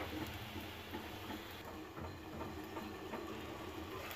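Low steady hiss with faint crackles from a covered pot of chicken and potato curry cooking on a gas burner.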